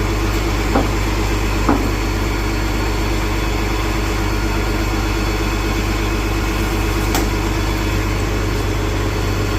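Disney transit bus engine running with a steady drone, heard from inside the bus, with a few light knocks.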